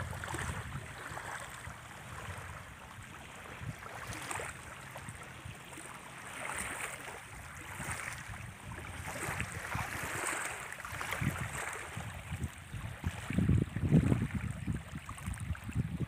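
Small waves lapping and washing onto a muddy freshwater reservoir shore, swelling and falling back every few seconds.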